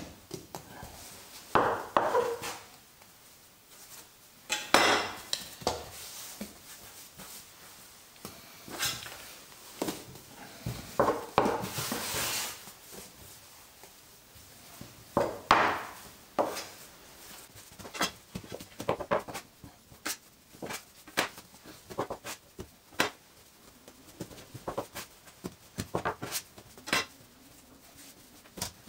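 Spelt dough being handled on a wooden work bench: irregular knocks, taps and soft slaps as pieces are set down, pressed and preshaped, with a few sharper clicks among them.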